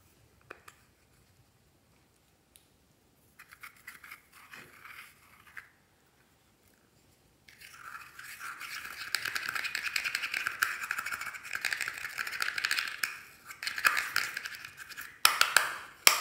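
Pressed pink eyeshadow being scraped out of its plastic compact with a small tool, a dense scratchy scraping that runs steadily from about halfway in, with a lighter spell of scratching a few seconds in and a few louder strokes near the end.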